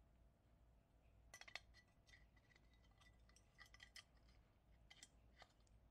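Faint, irregular metallic clicks and scrapes of pliers working inside the brass burner cup of a Coleman 508A stove, picking out the ceramic fibre wool. The clicks start about a second in and come in scattered clusters.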